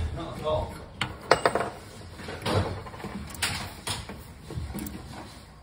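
Handling clicks and small metallic knocks from a 3/4-inch copper compression olive and fitting being worked onto old imperial copper pipe, about five separate clicks spread through the stretch.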